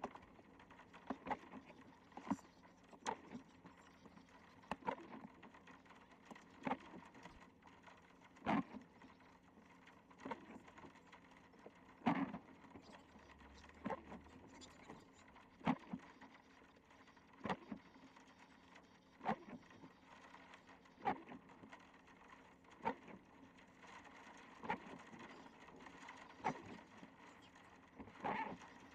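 Windshield wipers sweeping a rain-wet windshield, heard from inside a car, with a sharp knock about every two seconds over a low, steady hum from the stopped vehicle.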